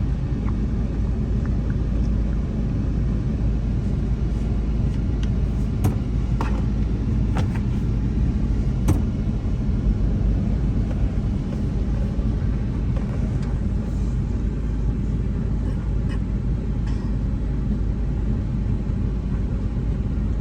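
Steady low rumble of a car driving, engine and tyre noise heard from inside the moving car, with a few light knocks about six to nine seconds in.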